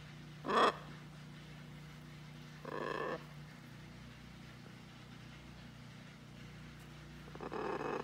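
Blue-and-gold macaw giving three short, non-word calls: a brief sharp one about half a second in, a longer one around three seconds, and another near the end.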